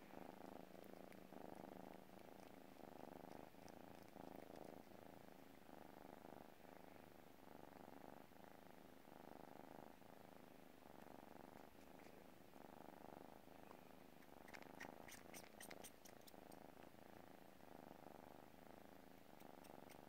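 F7 savannah kitten purring softly in a steady in-and-out rhythm while suckling on a person's skin, with quick faint sucking clicks about three-quarters of the way through and again near the end.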